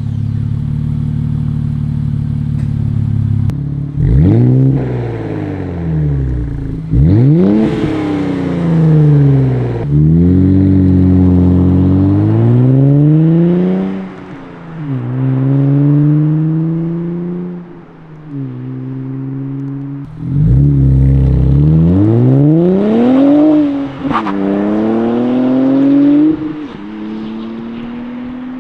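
Nissan Z's twin-turbo 3.0-litre V6 through an AWE cat-back exhaust, idling steadily at first. It is then revved and driven off in launches, its note climbing and falling back several times as it revs and shifts gear.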